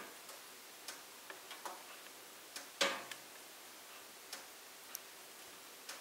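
Firewood burning in a wood-burning fireplace, crackling with irregular sharp pops and snaps over a faint hiss, one louder pop about three seconds in.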